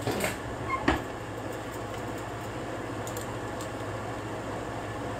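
A metal food can knocks against a countertop as it is handled, near the start and again about a second in. A few faint clicks follow, as a handheld can opener is picked up. A steady low hum runs underneath.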